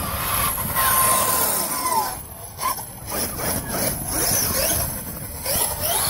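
KM X2 RC short-course truck's brushless motor, a 520 kV Leopard running on 8S, whining as it is driven, its pitch rising and falling as the truck speeds up and slows, with a held tone about a second in that then drops away. A low rumble of wind on the microphone lies underneath.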